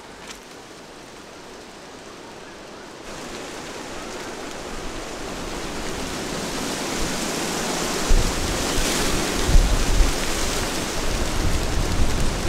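Wind building up and growing steadily louder, with gusts rumbling on the microphone from about eight seconds in.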